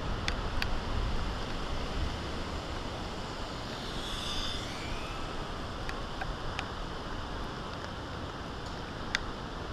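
Wind blowing over the microphone: a steady rush with low buffeting that eases after the first second or two. A few sharp ticks and a brief higher sound about four seconds in are heard over it.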